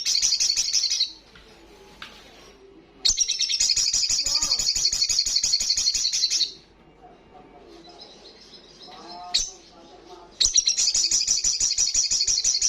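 Sogon sunbird singing its loud rapid trill (ngalas) in three bursts: a short one at the start, a long one of about three and a half seconds, and another from about ten seconds in. Fainter chirps come between the bursts.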